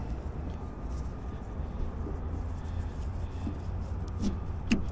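Steady low rumble of a vehicle running, with a couple of faint clicks near the end.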